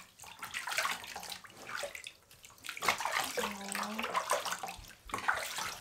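Water splashing and sloshing in a bathtub as hands wash a Rottweiler puppy standing in shallow water, in uneven splashes. A short low vocal sound comes about two thirds of the way through.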